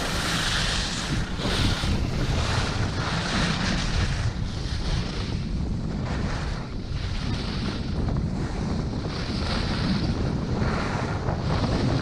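Wind buffeting the microphone of a camera carried by a skier in motion down a piste: a steady, loud low rush with a higher hiss that swells and fades every second or two.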